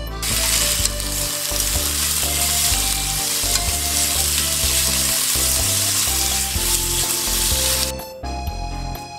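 Chicken pieces sizzling in hot oil in a frying pan while being stirred with chopsticks. The sizzling cuts off suddenly about eight seconds in, with background music underneath.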